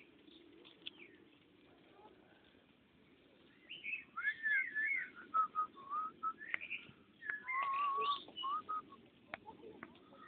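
Quiet at first, then from about three and a half seconds in someone whistles a wandering tune of gliding and held notes.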